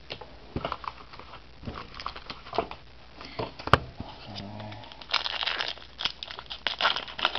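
Foil trading-card pack wrappers crinkling and rustling as the packs are handled, with scattered small clicks and one sharp tap about halfway through. The crinkling is thickest in the last two seconds or so.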